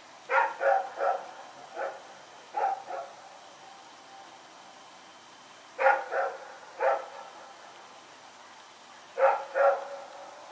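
Belgian Malinois dog barking in short groups of two or three sharp barks, about eleven in all, with pauses of a couple of seconds between the groups.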